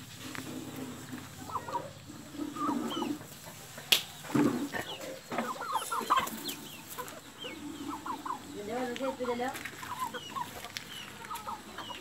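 A flock of Aseel chickens clucking and calling, with many short high-pitched calls mixed in. There is one sharp knock about four seconds in.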